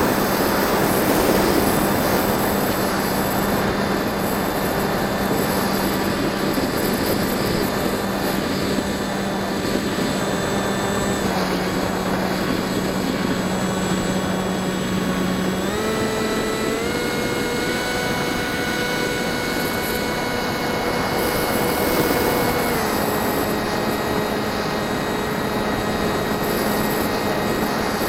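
Bixler 1.1 RC plane's NTM 2200kv brushless electric motor and propeller whining in flight at a steady pitch. A little past halfway the pitch steps up as the throttle is opened, and about seven seconds later it drops back.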